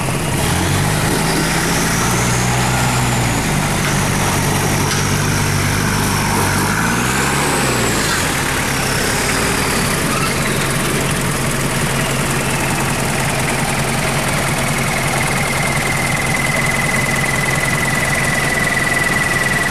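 Off-road 4x4 truck engine revving up and down twice, then running steadily, with a high whistle that rises and falls with the revs.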